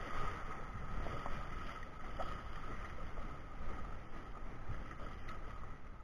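River water rushing and splashing around a raft as a paddle dips into the current, with a steady low rumble of wind on the microphone.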